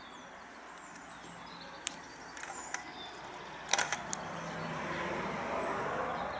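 Sharp metal clicks from a Chassepot M1866 needle rifle's bolt as a paper cartridge is chambered, the loudest about three and a half seconds in. Under them a rushing noise swells from about four seconds in, peaks near the end and starts to fade.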